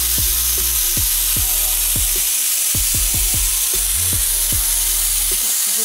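Steam hissing steadily out of a pressure cooker's vent as the whistle weight is lifted off with a spoon, releasing the pressure after cooking.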